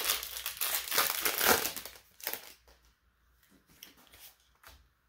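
A trading-card booster pack wrapper crinkling as it is torn open, loudest over the first two seconds, then a few faint rustles and clicks as the cards are handled.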